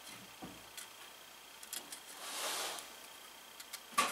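Soldering a wire handrail stanchion on a model locomotive: faint small clicks as the soldering iron tip and wire are worked, a brief soft hiss a little past the middle, and a sharper click near the end.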